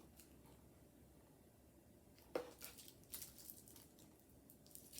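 Near silence with a few faint crinkles and taps of candy wrappers being handled, the clearest about two and a half seconds in.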